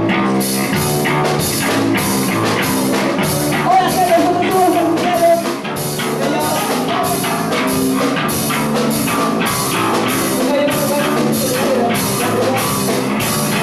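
Rock band playing: a drum kit keeps a steady fast beat under sustained guitar chords, with a wavering melody line, likely a voice, over it.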